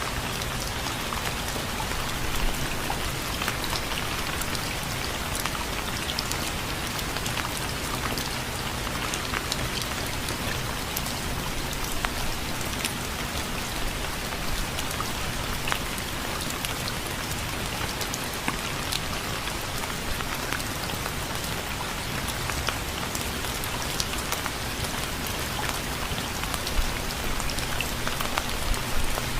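Steady rain falling, with many separate drops ticking on a hard surface over a constant hiss.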